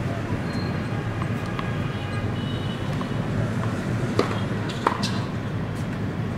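Steady low outdoor rumble with two sharp knocks a little past halfway, less than a second apart, typical of a tennis ball being bounced on a hard court.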